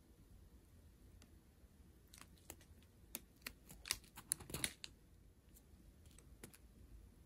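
Faint crinkling and clicking from a strip of small plastic zip bags of round resin diamond-painting drills being handled, scattered clicks with a short flurry of them about four seconds in.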